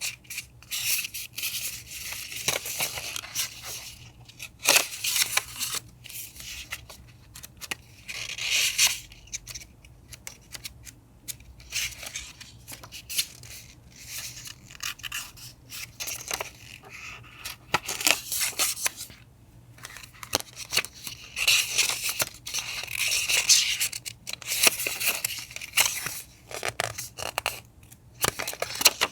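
Paper being cut with scissors and torn, in irregular bursts of crisp rustling with many small clicks between.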